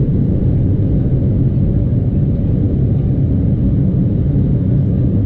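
Cabin noise of an Embraer 175 at takeoff power as it lifts off, its GE CF34 turbofans and the airflow heard inside the cabin as a loud, steady low rumble.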